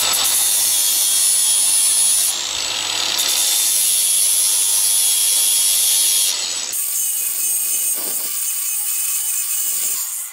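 Angle grinder with an abrasive disc grinding down and smoothing a TIG weld bead on cast aluminium. It runs steadily with a high whine, and the sound turns lighter and quieter about two-thirds of the way through.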